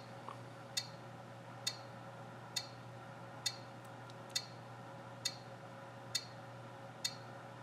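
Passive buzzer driven by an Arduino Uno giving short, sharp ticks about once a second, eight in all: the seconds of a countdown timer running down.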